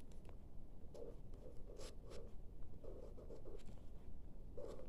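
Blue felt-tip marker writing on squared notebook paper: a run of short, irregular scratching strokes.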